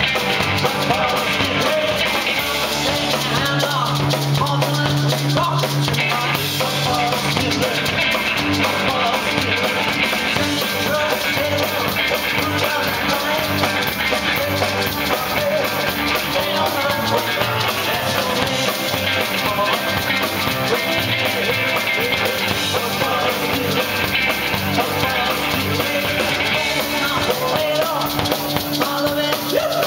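Live rock and roll band playing a song: drum kit and electric guitar with the singer's vocals, and a maraca being shaken along to the beat.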